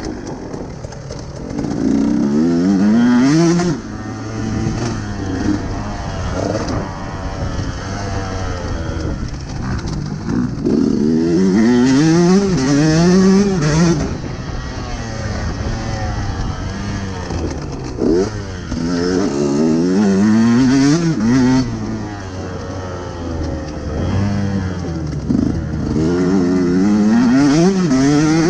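KTM 150 SX two-stroke dirt-bike engine being ridden hard. Its pitch climbs in repeated sweeps as the bike accelerates and drops back when the throttle is shut between them.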